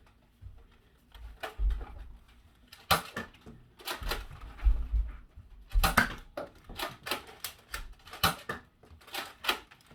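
Nerf foam-dart blasters being primed and fired: a dozen or so irregular sharp plastic clicks and knocks, with a few duller thumps.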